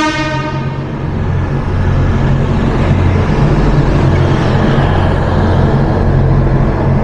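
Feeder train pulling in along the platform, its carriages moving slowly past close by: a steady low rumble and hum of the moving train.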